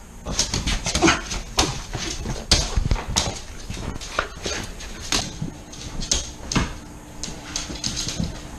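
An excited dog scrambling and hopping about on a hardwood floor, making many short, irregular clicks, scuffs and light knocks.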